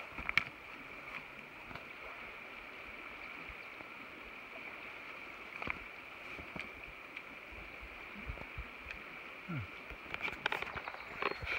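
Shallow river running over rocks at a ford, a steady rush. A few knocks near the end.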